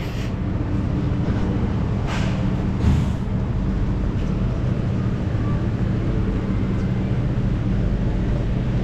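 Steady low diesel hum of an intercity train standing at the platform, its engine running at idle. Two short noises come through about two and three seconds in.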